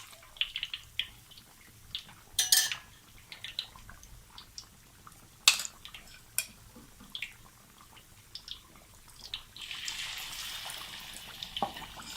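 Pork slices frying in a pan of oil: scattered pops and crackles from the oil, with clinks of a utensil against the pan as the pork is turned, and a louder spell of sizzling about ten seconds in.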